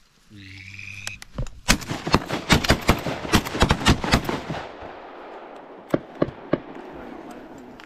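A drawn-out duck call, then a rapid volley of shotgun shots from several shooters firing at once, well over a dozen cracks packed into about three seconds, with echoes rolling after them. A few more single shots follow about six seconds in.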